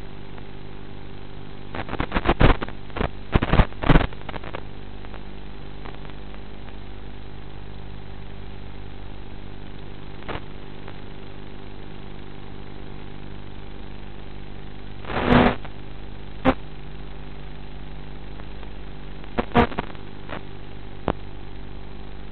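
Electric motor and propeller of an FPV model airplane, heard through its onboard camera microphone as a steady hum under rushing air. Clusters of loud crackles come about two to four seconds in, again at about fifteen seconds, and around twenty seconds.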